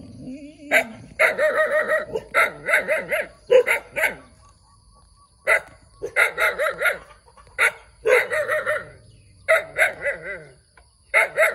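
Puppy barking in quick runs of yaps, several barks at a time with short pauses between.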